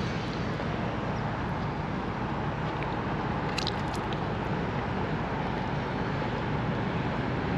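Steady low rumble of background noise, with a few faint clicks about three and a half seconds in.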